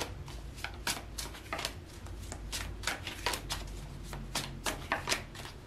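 A deck of tarot cards being shuffled by hand: an irregular run of quick, soft card clicks and slaps.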